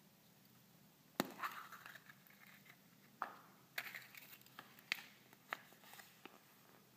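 A hard plastic surprise egg snapped open with one sharp click about a second in, then the crinkle and clatter of handling the small plastic capsule inside and its paper leaflet, with several lighter clicks.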